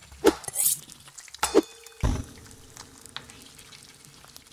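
Intro logo sound effects: a few quick sharp hits and swishes, then a deep boom about two seconds in that fades out slowly over a faint held tone.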